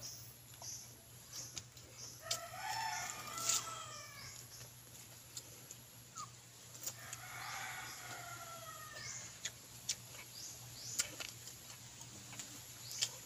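A rooster crowing twice, about five seconds apart, each crow lasting about two seconds, over scattered short clicks of eating close by.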